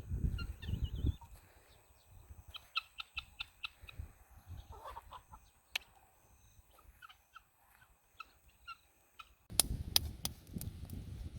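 Birds calling in short, scattered chirps. Wind rumbles on the microphone for the first second and again near the end.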